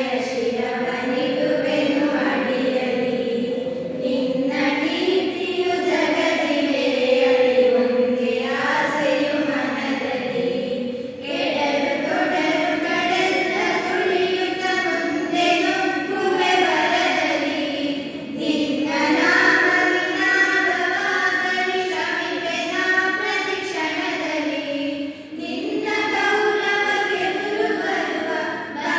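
A group of girls singing a song together, with sustained notes and brief breaths between phrases.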